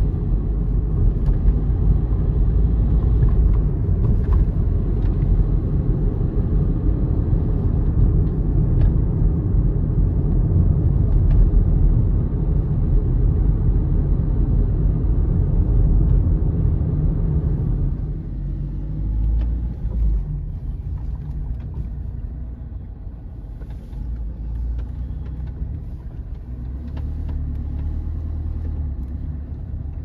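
Steady road and engine rumble heard from inside a moving car's cabin. It drops noticeably in level about two thirds of the way through.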